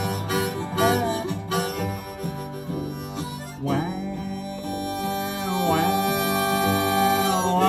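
Instrumental acoustic blues: a harmonica leads with bent, sliding notes over strummed guitar and low bass notes.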